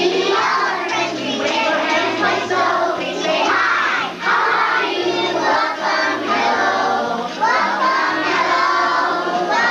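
A song playing with a steady bass line, and a group of children singing along.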